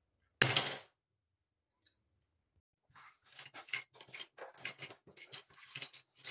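Plastic Lego pieces clattering onto a hard tabletop in one loud crash about half a second in. From about three seconds in comes a quick run of small plastic clicks and rattles as loose bricks are pushed around by hand.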